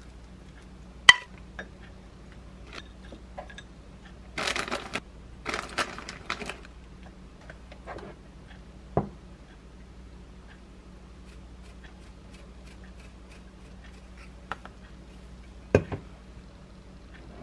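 Kitchen handling sounds around a ceramic dish: a sharp clink about a second in, then a couple of seconds of rustling as shredded cheese is scattered over the rice. After that come a few light clicks and a knock near the end as the dish is set down.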